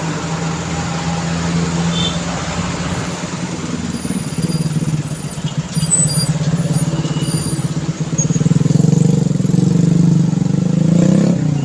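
Busy road traffic with a vehicle engine running close by, a steady low pulsing drone. It grows louder in the last few seconds, then drops away suddenly near the end as the vehicle passes.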